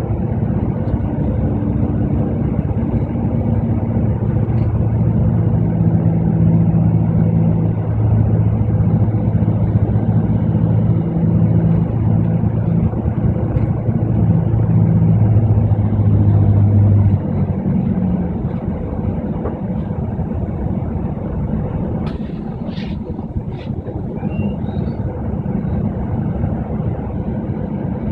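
Double-decker bus's engine running as the bus drives, heard from on board over the road noise. Its steady hum drops away a little after halfway, as the engine eases off. Near the end there are a couple of short high squeaks.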